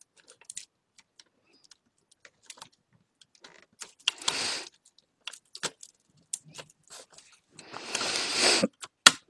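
Small plastic clicks and rattles of an inkjet printer's carriage mechanism being handled and taken apart, with two longer rustling noises about four and eight seconds in and a sharp click near the end.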